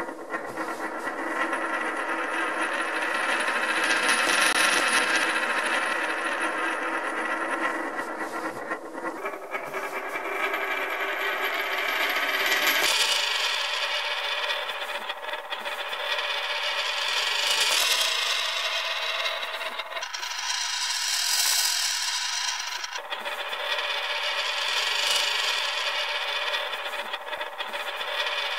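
A coin spinning on its edge on a wooden tabletop: a continuous whirring rattle with a ringing tone, swelling and fading every few seconds. The ringing tone jumps to a different pitch abruptly a few times, about a third of the way in and again near halfway.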